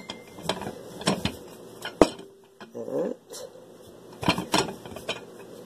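Light knocks and clatter of a wooden rolling pin and kitchen things on a countertop as bread dough is rolled out, with a sharper knock about two seconds in.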